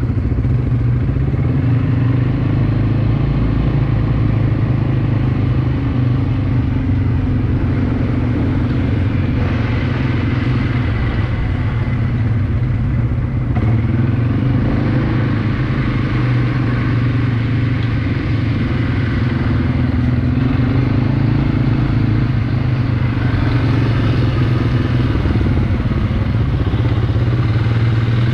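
ATV engine running steadily, its pitch rising and falling a little with the throttle.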